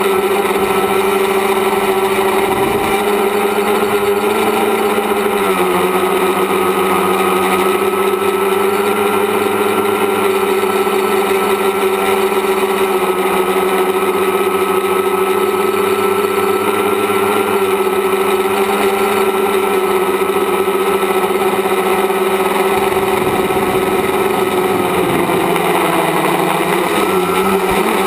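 A tricopter's electric motors and propellers buzzing steadily, heard from its onboard camera. The pitch drops a little about five seconds in and wavers near the end.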